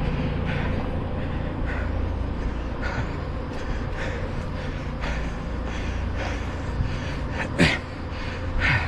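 A runner's hard breathing, a short breath roughly once a second with a sharper gasp near the end, over a steady low rumble of a nearby vehicle engine.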